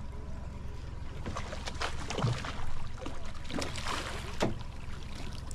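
A boat's engine running steadily, with several sharp knocks on board. The loudest knock comes about two and a half seconds in.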